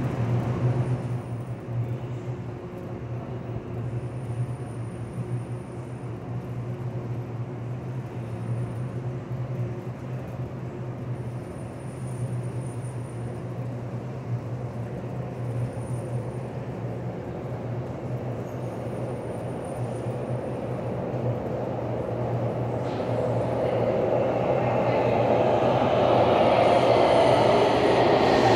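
Underground metro platform with a steady low hum, then a subway train approaching: its rumble grows louder over the last several seconds, with a falling whine as it slows into the station.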